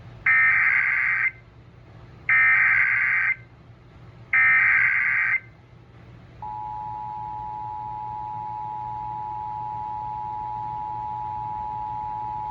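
Emergency Alert System header: three one-second bursts of warbling digital data tones about two seconds apart. About six seconds in, the steady two-tone attention signal (853 and 960 Hz) begins, marking the start of a new emergency alert.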